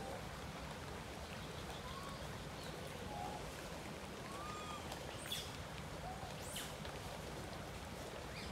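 Faint short arched calls, one every second or two, over a steady low background noise, with two thin high chirps about five and six and a half seconds in.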